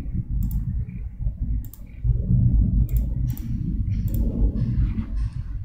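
Several sharp computer-mouse clicks, spaced about a second apart, as pen-tool and colour options are picked in a drawing app, over a steady low rumble of background noise.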